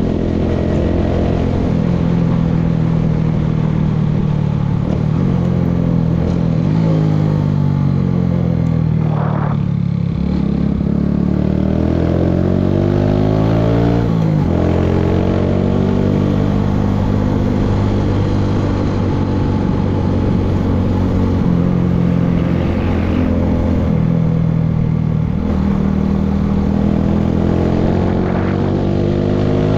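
Motorcycle engine running on the road, its pitch rising and falling as it speeds up and slows. The pitch drops to a low point about ten seconds in, jumps back up at about fourteen seconds, and falls and rises again near the end.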